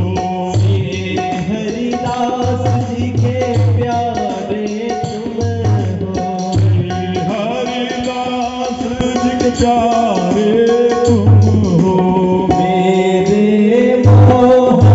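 Hindu devotional aarti song: a voice singing a gliding, held melody over a drum beat and instrumental accompaniment.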